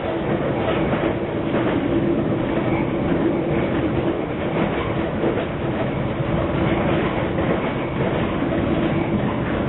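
A London Underground District Line train running steadily, heard from inside the carriage: a continuous rumble of wheels on rail, a steady hum and a few faint clicks.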